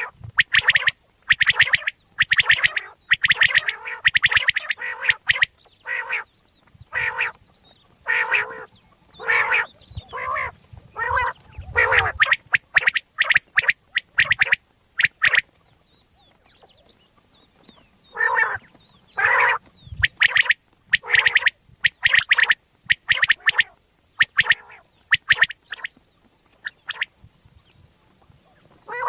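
Common quail calling: short call notes repeated in quick runs, dense at first and then more spaced, falling quiet for a couple of seconds about halfway through before starting again. This is the kind of call played as a lure when hunting quail in wheat fields.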